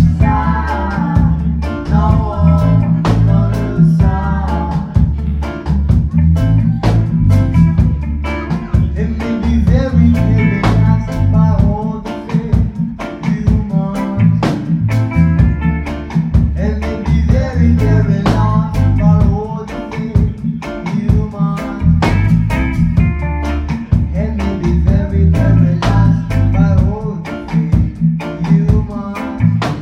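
Live reggae band playing: sung vocals over a drum kit, guitar and a heavy bass line with a steady beat.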